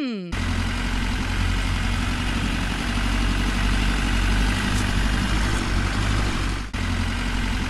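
Tractor engine sound effect running steadily, with a brief break about seven seconds in.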